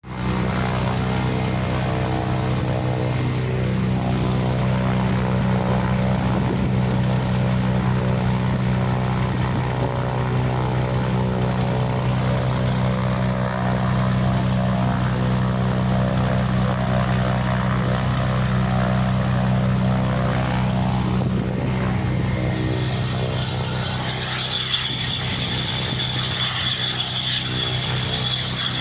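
Propeller aircraft engine running steadily with an even, droning tone. About two-thirds of the way through, a high steady jet-engine whine joins it.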